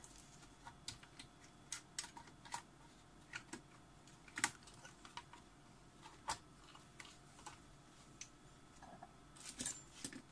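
Faint, irregular clicks and taps of a computer motherboard, screws and tools being handled and fitted back into an all-in-one PC's chassis, the loudest taps about four and six seconds in.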